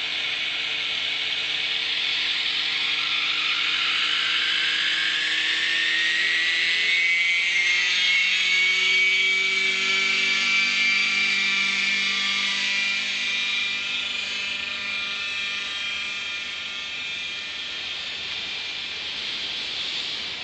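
Remote-controlled helicopter carrying fishing line out, with the reel paying out line: a high whine climbs in pitch over the first seven seconds and then holds steady, over a lower hum that sinks slightly in pitch and slowly fades after the middle.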